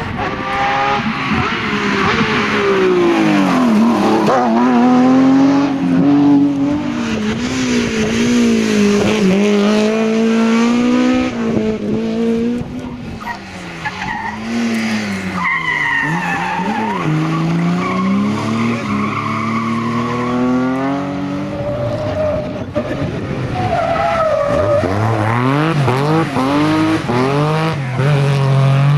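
Rally cars running hard on a special stage, the engine note climbing and dropping again and again through gear changes and lifts off the throttle.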